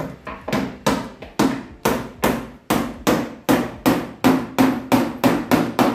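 Rapid, evenly paced hammer blows, about three or four a second, keeping a steady rhythm.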